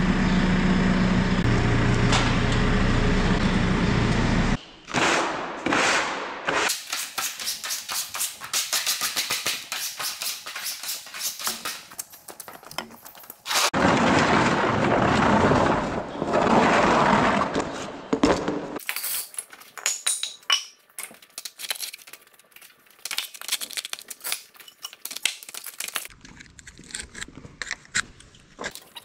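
Telehandler diesel engine running steadily for the first four seconds or so, then workshop work on a plough: long runs of rapid metallic clicking and knocking with a louder noisy stretch in the middle, and near the end a wire brush scrubbing on metal in short strokes.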